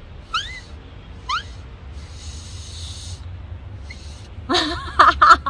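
Home-rolled banana-leaf whistle being blown: two short squeaks that rise in pitch, then a breathy rush of air with no note, then several loud, wavering squawks near the end.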